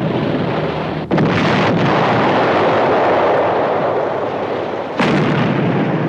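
Depth charges exploding: a sudden blast about a second in and another about five seconds in, each followed by a long rush of noise.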